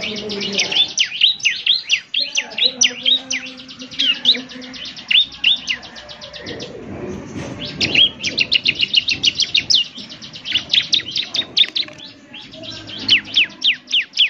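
Bar-winged prinia (ciblek) song, the lure call that gets caged ciblek singing. Fast trills of very rapid high ticks alternate with quick, high downward-swept whistles, in bouts throughout. A low rushing noise rises under the song for a second or two around the middle.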